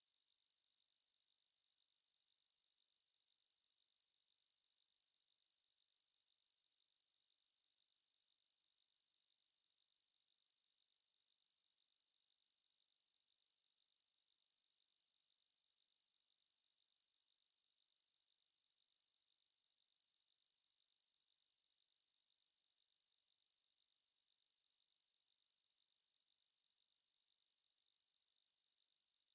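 A pure 4173 Hz sine-wave test tone, a single steady high-pitched tone held at an even level.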